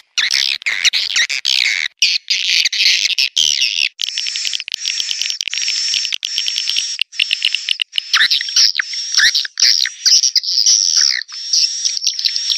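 Swiftlet calling-sound track: rapid, dense chirping and twittering of white-nest swiftlets, broken by abrupt cuts, the kind of recording played to lure swiftlets into a bird house. About four seconds in, it settles into a short repeating loop of about two bursts a second, with a thin steady high tone running through it.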